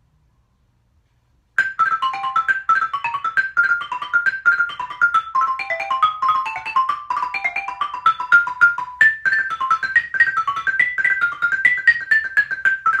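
Xylophone played with two mallets: a fast, even stream of struck notes, about eight a second, with the melody moving up and down. It starts about a second and a half in and sits higher in pitch after about nine seconds.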